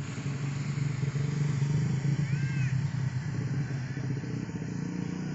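A vehicle engine running steadily, with a short high arching chirp about two seconds in.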